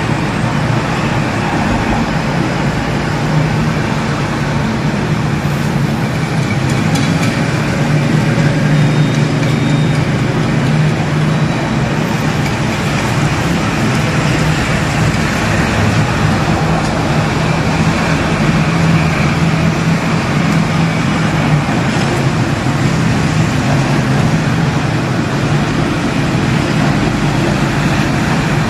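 Steady low rumble with a hiss above it, unchanging throughout.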